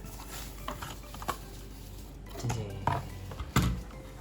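A few light knocks and clatters from a plastic mechanical keyboard being handled and set down while it is unpacked. The loudest knocks come a little after halfway and near the end.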